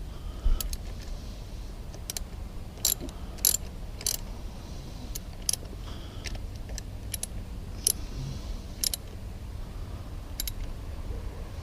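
Ratchet wrench clicking in short, irregular strokes while the fuel pump's bolts are snugged down evenly, over a low steady rumble.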